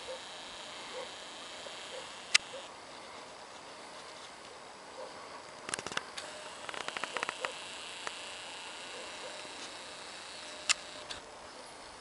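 Handling noise from a handheld camera: a few sharp isolated clicks and a quick run of ticks near the middle, over faint outdoor background hiss.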